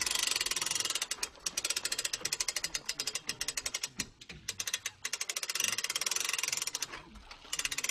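Hand crank on a hitch-mounted handcycle hauler being wound to lift the handcycle, its ratchet clicking rapidly in several runs with short pauses between turns.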